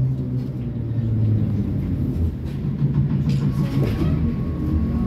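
ZiU-682 trolleybus on the move, heard from inside the cabin: a steady low rumble and hum of the running vehicle, with a faint whine joining near the end.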